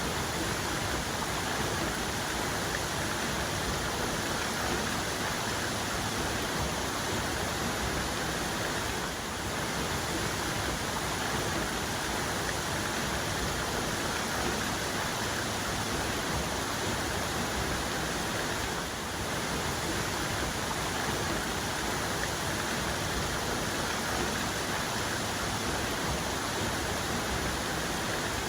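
Waterfall, the main cascade: water falling in a steady, even wash of noise.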